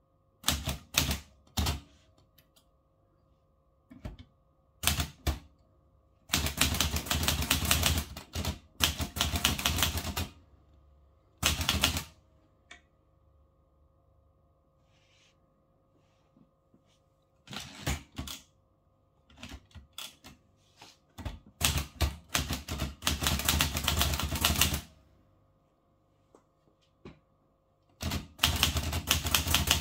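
Olivetti Lettera 32 manual portable typewriter being typed on: runs of rapid key strikes broken by pauses, including a long pause about halfway through.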